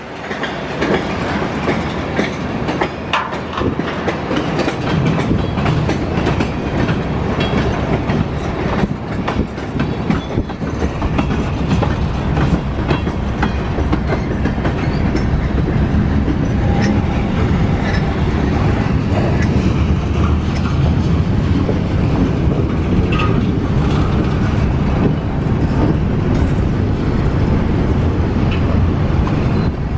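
Freight train of tank cars, covered hoppers and boxcars rolling past close by: a steady rumble of steel wheels on rail with many sharp clicks as the wheels pass over the rail joints.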